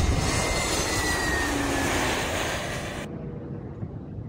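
Jet airliner engines, loud and close, with a faint whine that falls slightly in pitch. It cuts off abruptly about three seconds in to a much quieter background.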